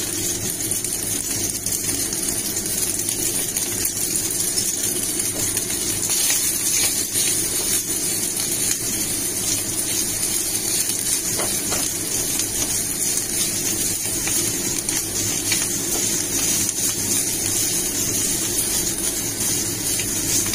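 Steady sizzling hiss of spiral pasta frying in a cast-iron skillet, with a few faint scrapes of a plastic spatula stirring it through the pan.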